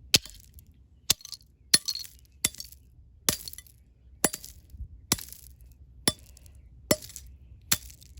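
Eyeglasses being struck over and over with a wrench: about ten sharp clinking, glassy impacts at a steady pace of a little more than one a second, each with a brief ring.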